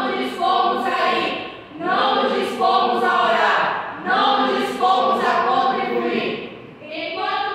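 A group of voices speaking together in unison as a choral recitation (jogral), in phrases separated by short pauses.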